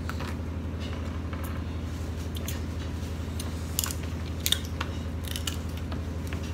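Someone eating snow crab with their fingers: shell pieces picked and broken by hand, then wet chewing with a cluster of sharp clicks a few seconds in. A steady low hum runs underneath.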